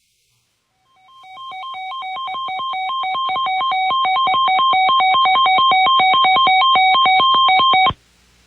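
Electronic two-tone alert signal that opens an Emergency Alert System weather warning. Two pitches alternate rapidly, about seven times a second. It swells in loudness over the first few seconds and cuts off suddenly near the end.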